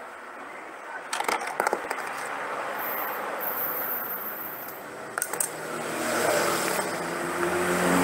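A few light clicks and knocks from hands handling the plastic vacuum cleaner housing and tools on the bench. Then a motor vehicle engine running steadily, growing louder over the last couple of seconds.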